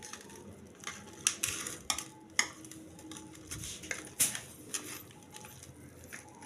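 Boiled potatoes squeezed and mashed by hand in a stainless steel bowl: irregular squishing with sharp, uneven clicks of fingers against the metal bowl.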